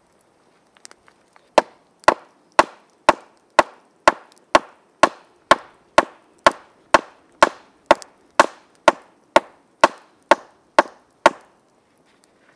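A wooden stake being driven into the ground with a wooden mallet: about twenty steady, evenly spaced blows, roughly two a second, after a few light taps.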